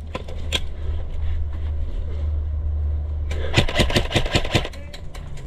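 Airsoft rifle firing a rapid string of about ten shots, from about three seconds in to near the end, over a steady low rumble. A couple of single sharp clicks come in the first second.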